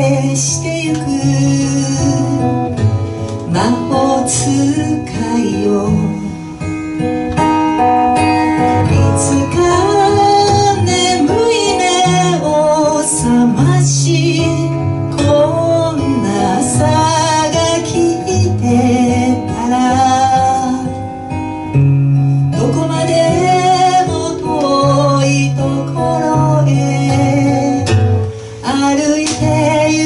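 A woman singing a song live into a microphone, accompanied by acoustic guitar.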